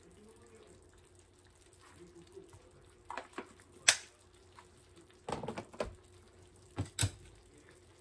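Broth simmering in a frying pan of sliced hachiku bamboo shoots, under a steady low hum, with a scatter of sharp clicks and knocks, the loudest about four seconds in.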